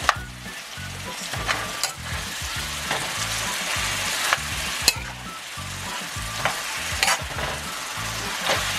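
Ground beef, steak strips, onions and peppers sizzling in an olive-oiled skillet as a metal spoon stirs them, with a few sharp clicks and scrapes of the spoon against the pan.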